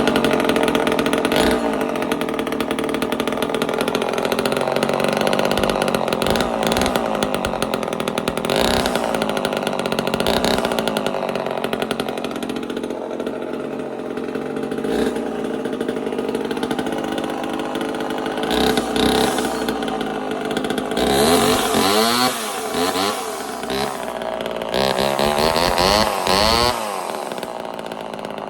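Old Homelite two-stroke chainsaw running loudly at a steady speed, then revved up and down in two spells near the end.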